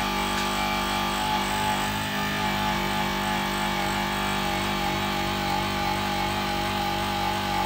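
JOOLTOOL running steadily, its motor giving a continuous whine with a clear fixed pitch, while a spinning abrasive wheel scrubs grime off a griddle's surface.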